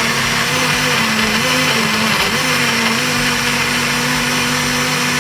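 Electric countertop blender running at full speed, blending onions, bell pepper and scotch bonnet peppers with water. Its motor hum sags in pitch twice in the first half as the chunks hit the blades, then holds steady.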